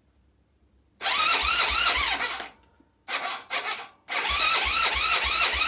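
Electric starter cranking a freshly rebuilt air-cooled 250 cc single-cylinder Jianshe ATV engine in three bursts, the middle one short, on its first start attempt after new rings, valve seals, tappets and camshaft.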